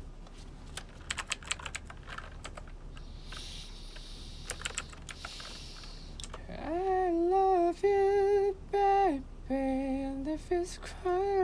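Computer keyboard and mouse clicking for about six seconds, then a voice humming a string of held, steady notes that step up and down in pitch.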